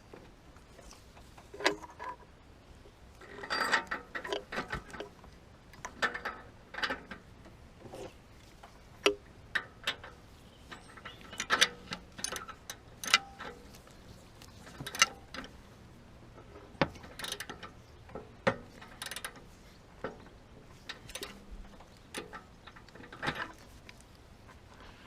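Hand tools clicking and scraping on metal as a new oxygen sensor is screwed into the exhaust and tightened. The clicks come singly and in short irregular clusters.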